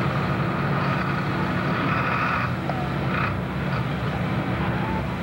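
Farm tractor's diesel engine running hard under full load, pulling a weight-transfer sled, a steady low drone.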